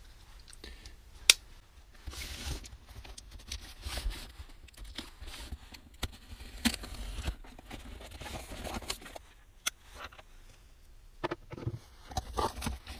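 A cardboard box being opened and its packing handled: scattered rustling, scraping and crinkling, with short knocks and clicks, the sharpest a little over a second in.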